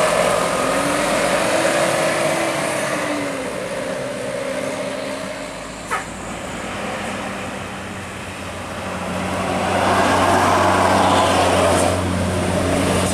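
Road traffic: vehicles pass with a steady engine hum, and a heavy vehicle's engine swells louder from about nine seconds in as it approaches and passes. A single sharp click sounds about six seconds in.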